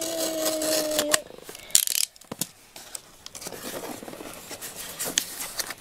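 Small cardboard box being torn open by hand along its perforated tear strip: one loud rip just before two seconds in, followed by rustling and light clicks of cardboard being handled. A short steady tone sounds in the first second.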